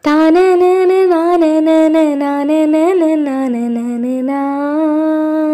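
A woman singing solo without words, holding long notes with small ornamental turns and glides in a slow Carnatic-style vocal line.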